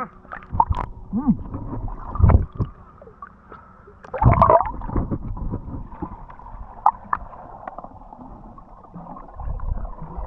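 Water gurgling and bubbling in irregular bursts, with short wobbling glides in pitch and a louder gush about four seconds in.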